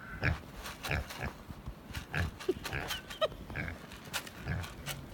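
Pet pig grunting: a string of short, low grunts, a bit over one a second.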